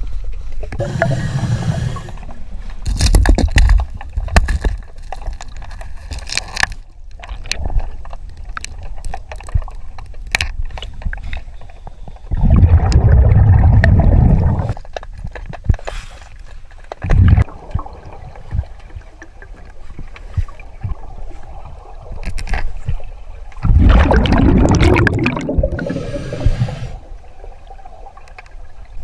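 Scuba diver breathing underwater through a regulator: two long loud rushes of exhaled bubbles, a thin hiss of inhalation, and scattered clicks and scrapes from handling things on the riverbed in between.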